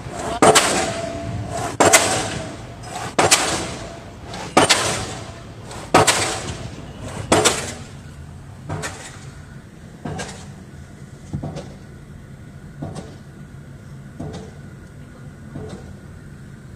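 Pile driver hammer striking a pile in a steady rhythm, a heavy ringing blow about every second and a half. The first six blows are loud, then the blows carry on much weaker from about eight seconds in.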